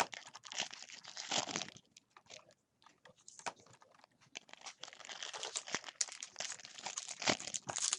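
Trading-card pack wrappers crinkling and cards rustling and clicking as they are handled and sorted, with a short lull about two seconds in.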